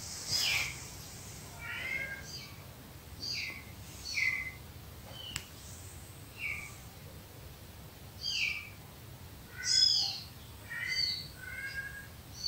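Recorded cat meows played back from a cat-calls video: a series of short, high calls, each falling in pitch, about one a second.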